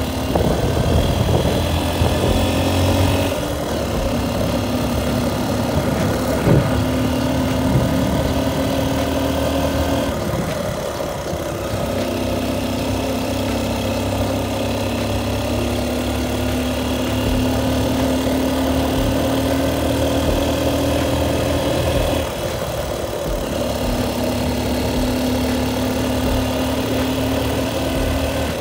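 Motorcycle engine running steadily on the move, its note dropping and picking up again about three times as the rider eases off and opens the throttle, with wind and road noise under it.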